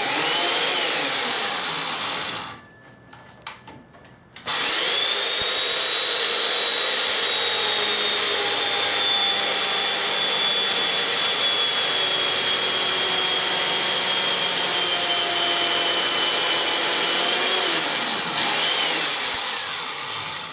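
Chainsaw mortiser plunge-cutting a mortise in a large cedar timber: a motor whine over the rasp of the chain chewing through the wood. It stops for about two seconds a couple of seconds in, then runs again, its pitch dipping near the end.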